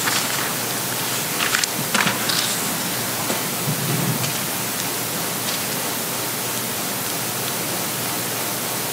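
Steady hiss of the hall's microphone and recording system, with a few soft clicks and rustles in the first couple of seconds and a low knock about four seconds in, from papers being handled at the lectern microphone.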